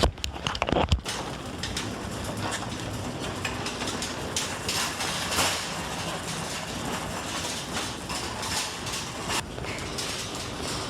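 Shopping cart being pushed across a store floor, its wheels and wire basket rattling steadily, after a few sharp knocks in the first second.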